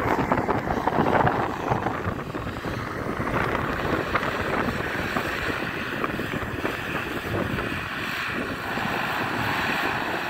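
Wind buffeting the microphone over the steady drone of a distant Sonalika 60 RX turbocharged diesel tractor working a rotavator through a flooded paddy. The wind is strongest in the first couple of seconds.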